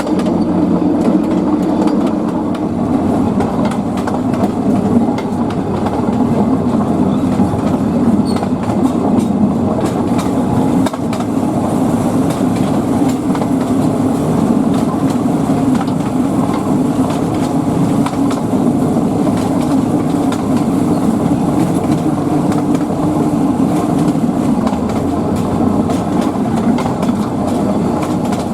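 Narrow-gauge train under way, its wheels clattering steadily over the rail joints.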